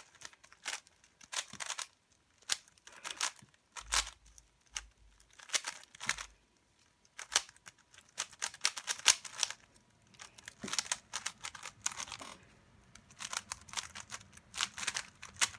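3x3 Rubik's cube being speed-solved: its plastic layers click and clack in quick flurries of turns, broken by short pauses.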